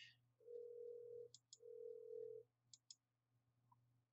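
Two steady low tones, each a little under a second long with a short gap between them, followed by a few faint computer-mouse clicks.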